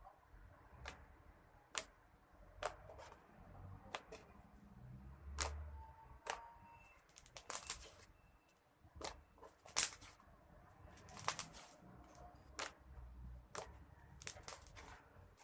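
Slime being pressed and poked, giving sharp wet pops and clicks about once a second, with short crackling runs of smaller pops in between.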